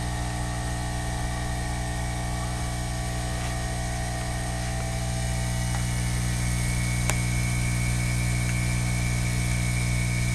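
A steady low machine hum with a thin high whine above it, getting slightly louder after about six seconds, and a single sharp click about seven seconds in.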